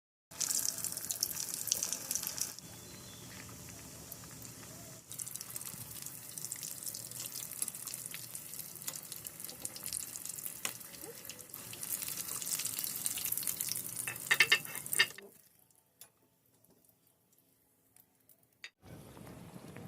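Potato cheese balls deep-frying in hot oil: a steady sizzle full of small crackles. The sizzle shifts in level a couple of times, has a burst of louder pops just before it drops away for about three seconds near the end, then comes back.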